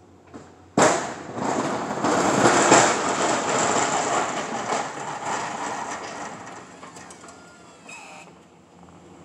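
Snowplow blade scraping snow across the pavement as the truck pushes forward. The scrape starts suddenly about a second in and fades away over the next several seconds.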